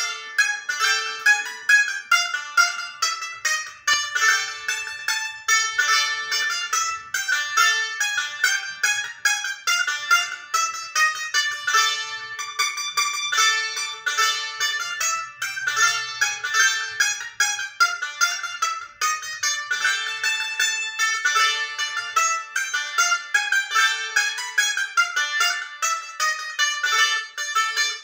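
Greek baglamas, a small bowl-backed lute with a spruce soundboard and walnut body, played solo: a fast, unbroken run of high, bright picked notes.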